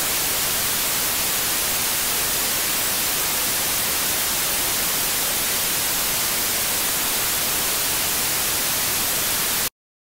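Television static: a steady hiss of white noise that cuts off suddenly near the end.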